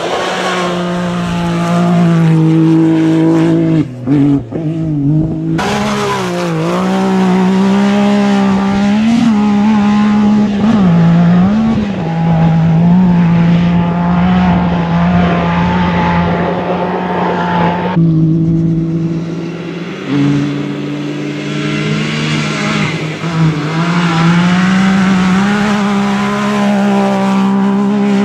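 Engine of a side-by-side (SSV) rally buggy running hard across desert sand, its note mostly holding steady but dipping and rising in places. The sound changes abruptly several times as the shots change.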